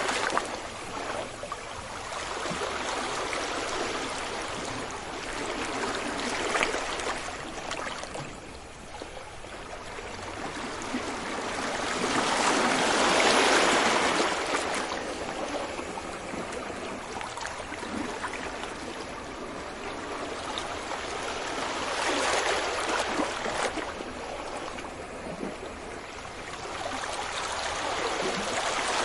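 Sea waves breaking and washing up a beach: a steady hiss of surf that swells and fades every six to nine seconds, loudest about thirteen seconds in.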